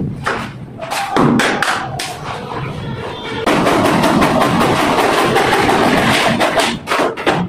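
Handsaw cutting through a plastic door panel in quick back-and-forth strokes. The strokes become a steady rasp from about three and a half seconds in.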